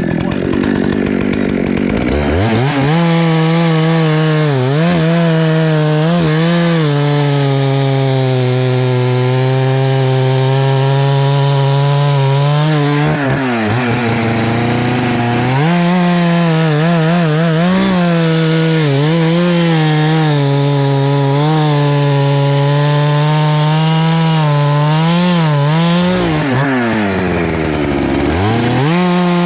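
Husqvarna 288XP single-cylinder two-stroke chainsaw revving up and cutting through wood under load, its pitch wobbling as the chain bites. The revs drop twice, once about halfway and again near the end, and climb back up each time for the next cut.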